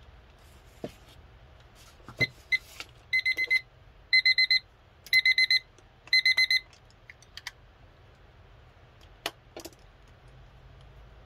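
Digital timer alarm beeping: four bursts about a second apart, each a quick run of high-pitched beeps. A few sharp handling clicks come before and after.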